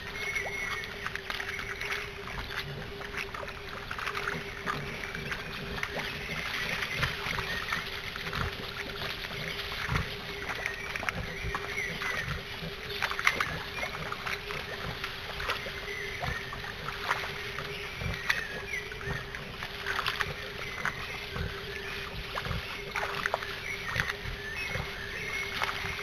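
Wild boar moving in and around a shallow muddy puddle: water sloshing and splashing, with scattered knocks and clicks.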